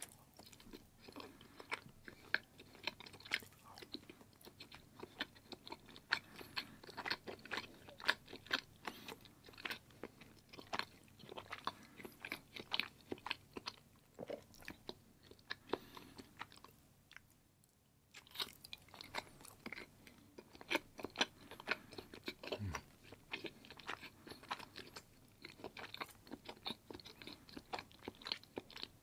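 A person chewing firm block cheese, a dense run of wet mouth clicks and smacks, with a short break a little past halfway before the chewing starts again.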